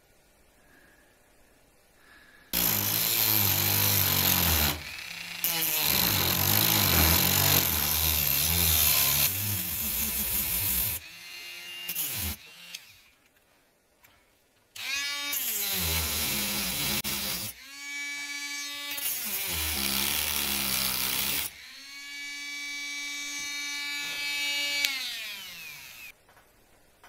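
Small electric power tool cutting a notch across the bore of a deer antler. A loud grinding starts about two and a half seconds in and lasts several seconds. The motor is then run three more times, its whine rising as it spins up and falling as it winds down near the end.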